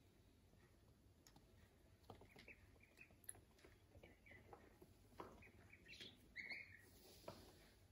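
Ducklings peeping faintly, a run of short chirps starting about two seconds in, with a few soft taps among them.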